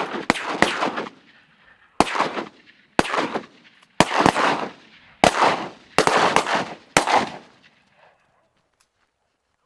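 A volley of shotgun fire from several hunters: about eight shots in seven seconds, the first two close together, each shot trailing off in a short echo.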